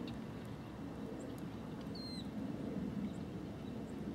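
Steady low outdoor rumble, with one short high chirp bending downward about two seconds in and a few faint clicks.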